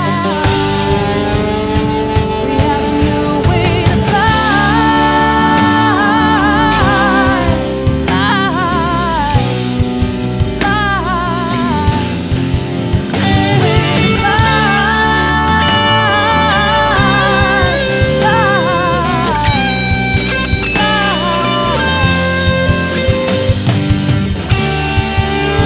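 Background song with guitar and a singing voice.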